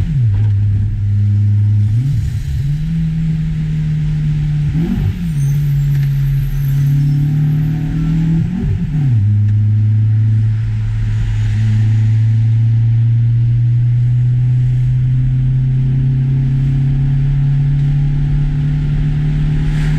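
Car engine being driven hard: its steady note jumps up and down several times in the first nine seconds, as with gear changes, then holds level.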